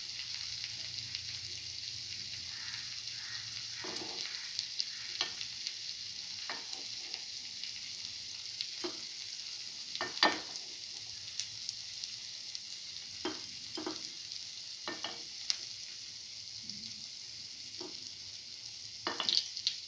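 Hot oil sizzling with a steady hiss in the cups of a cavity pan as fried fritters are lifted out, with short clinks and scrapes of a metal spoon against the pan every second or two and a quick cluster of them near the end.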